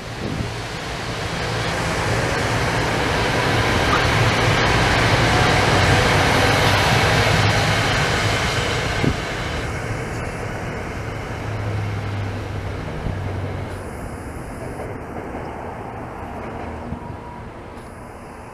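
SEPTA Regional Rail electric multiple-unit train passing close by: a steady rumble of wheels on rail with a low electric hum, swelling to its loudest about five seconds in, then fading away as the train recedes.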